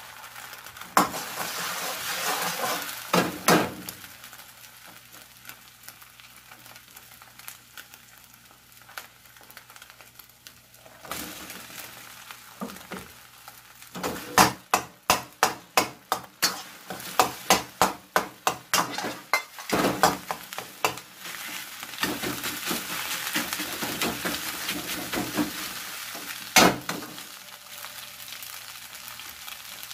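Egg and rice sizzling in a hot wok as they are stir-fried. In the middle a ladle strikes and scrapes the wok in a quick run of knocks, about two a second, breaking up the rice, with one more knock near the end.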